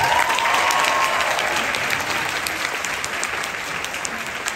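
Audience applauding, a dense patter of many hands clapping that starts suddenly and slowly eases off.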